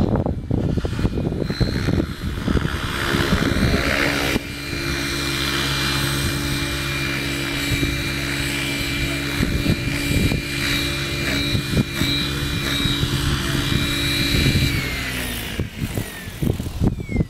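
Beam E6 electric RC helicopter in flight: a steady rotor hum with the high whine of its Align 700MX electric motor, and strong wind buffeting the microphone. About fifteen seconds in, the pitch drops.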